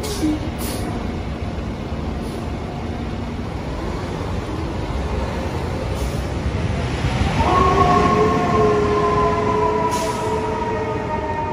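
Fire engine pulling out and driving off, its diesel engine rumbling, with a couple of short hisses near the start. About seven seconds in, a loud, steady warning tone from the engine starts abruptly and holds, sagging slightly in pitch.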